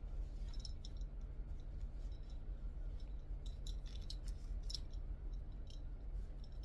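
Scattered faint clicks and light rustles of small parts and packaging being handled, over a steady low hum.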